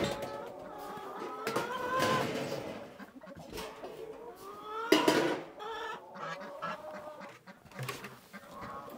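Domestic hens clucking and calling, with a loud squawk about five seconds in.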